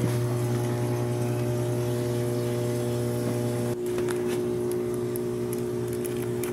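Steady low hum of running machinery, with several steady tones over it. It dips for a moment about two thirds of the way through.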